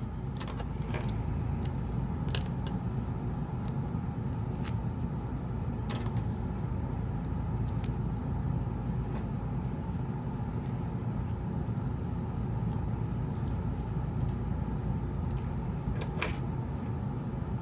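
Steady low background rumble with scattered small sharp clicks as plastic clamps are fitted to hold a freshly glued phone screen in place.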